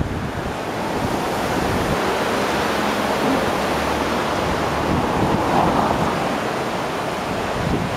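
Floodwater in a swollen river rushing over submerged banks and shallows, a steady noise of fast white water, with wind buffeting the microphone.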